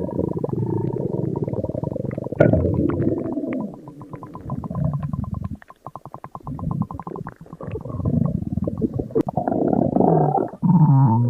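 Stomach growling and gurgling: long, low rumbles full of bubbling pops, with a quick run of rapid clicks about halfway and a wavering, pitched growl near the end.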